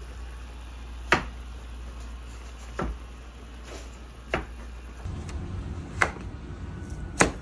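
Sharp clicks or knocks about every one and a half seconds over a low steady hum. From about two-thirds of the way in, a kitchen knife cuts into a whole unripe green papaya, with two more sharp knocks.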